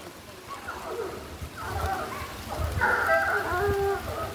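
Hunting dogs baying on a wild boar's trail, a series of drawn-out yelping calls that grow louder from about halfway through, with rustling and footfalls through undergrowth.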